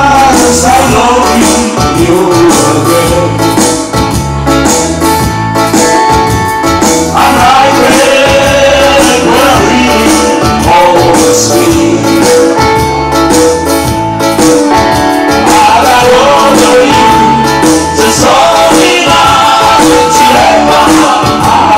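Dance music with a steady beat, playing loud, that starts abruptly at the very beginning.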